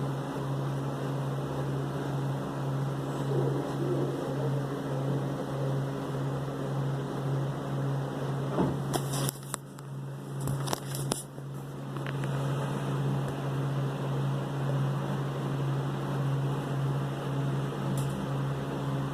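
A steady low machine hum, which drops away briefly with a few sharp clicks about nine to eleven seconds in, then returns.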